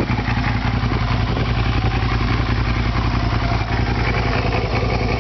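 2007 Suzuki SV650S's 645 cc V-twin engine idling steadily with an even, rapid pulse.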